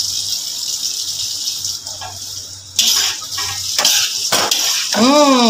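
Stir-fry sizzling in a wok of snow peas, shrimp and tempe, a steady hiss, joined about three seconds in by a metal spatula scraping and tossing the vegetables against the pan, which makes the sizzle louder.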